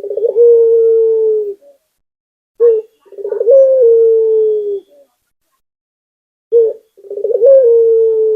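Puter dove cooing: three calls, each a short note, then a stuttering start and a long held coo. The calls come about every three and a half seconds.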